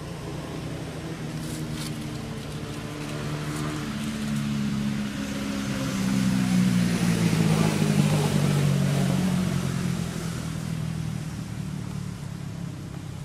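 Motor vehicle passing by: its engine hum and tyre noise grow louder, peak about eight seconds in, then fade.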